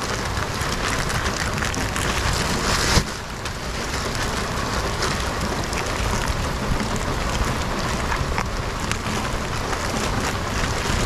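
Black plastic trash bag crinkling and rustling as it is handled and pulled on as a poncho, over a steady hiss of rain. A louder stretch of rustling stops abruptly about three seconds in.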